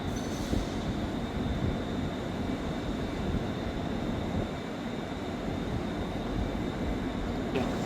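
Electric train running through the station: a steady rumble with a thin, high, steady whine over it.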